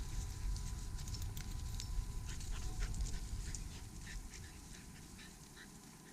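Crackling and rustling of dry leaves and brush as hunters or dogs move through the cover, getting quieter after about four seconds.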